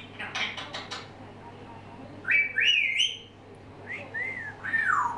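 African grey parrot whistling: a quick series of clicks, then loud up-and-down whistled notes about two seconds in. More whistles follow near the end, the last one sliding down in pitch.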